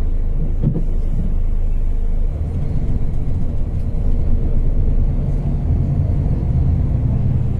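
Steady low rumble of a moving bus, heard from inside the cabin: engine and road noise.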